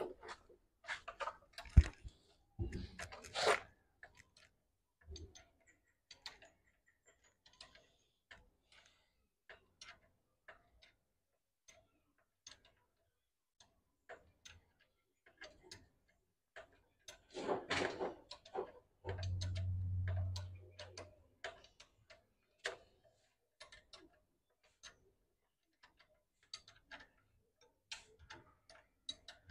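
Metal spanner clicking and knocking on bolts and the steel frame as bolts at the base of a generator engine are tightened: scattered light clicks, with a cluster of louder knocks in the first few seconds. A steady low hum comes in for about two seconds, about two-thirds of the way through.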